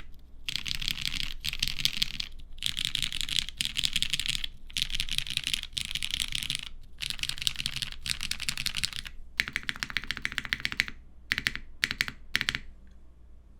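Typing on a custom mechanical keyboard with lubed vintage Cherry MX Brown tactile switches on a polycarbonate half plate, capped with GMK keycaps: runs of rapid keystrokes broken by short pauses. The typing thins to a handful of single key presses near the end, then stops.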